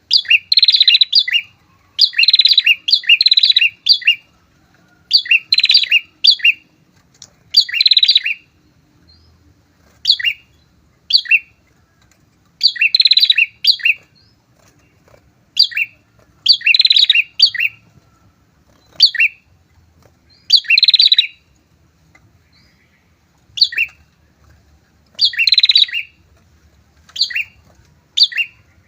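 A pair of prinias (prenjak) calling in an excited run of loud bursts of rapid, rattling chirps. The bursts come every one to two seconds, a few at a time, with short pauses between them.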